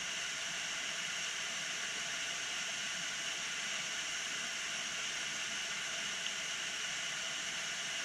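Steady rushing hiss of a tall, narrow waterfall falling onto rocks.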